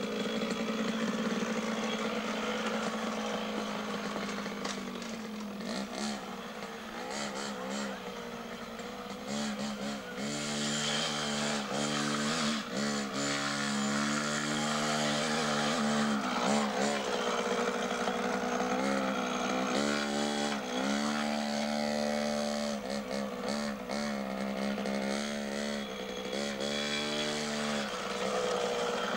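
Small 50cc two-stroke Beta minitrial motorcycle engine being ridden over rough ground, its revs swinging up and down over and over as the throttle is blipped and rolled off, busiest in the second half. Scattered short clicks and knocks run through it.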